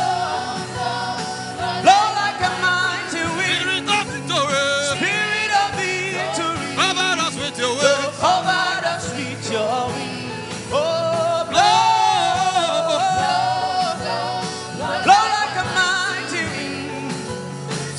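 Gospel worship song: a voice singing a slow melody with wavering, held notes over instrumental backing with a regular beat.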